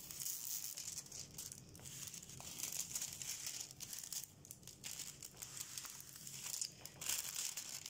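Plastic protective film on a diamond painting canvas crinkling as the canvas is handled and unfolded, in irregular crackles and rustles.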